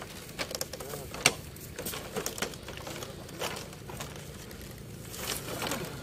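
Scattered creaks, knocks and footsteps of several men carrying a heavy log round slung from bamboo shoulder poles, the sharpest knock about a second in, over a steady low hum.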